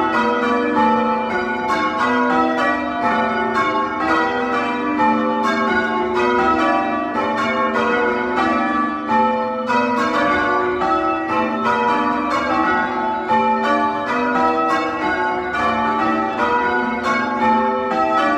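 A ring of six church bells ringing changes, loud and close, in a continuous stream of strokes several a second.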